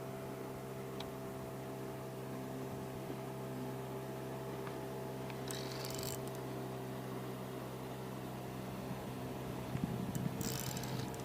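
A small motor humming steadily at one fixed low pitch. Two short hisses come in, about halfway through and near the end, with some rustling just before the second.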